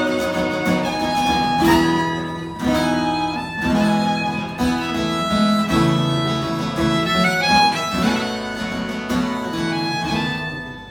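Fiddle playing a slow bowed melody over strummed acoustic guitar chords, with no singing. The sound grows quieter near the end.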